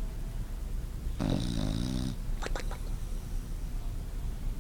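A sleeping bulldog snoring: one rattling snore about a second in, lasting about a second, then a short sputtering breath out.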